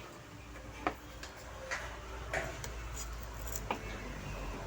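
A few light, irregular clicks and taps from tools and a circuit board being handled during soldering work, over a low steady hum.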